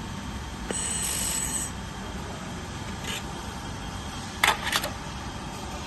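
Handheld laser welding machine running with a steady hum. A brief high hiss comes about a second in, and two sharp cracks follow a little after four seconds.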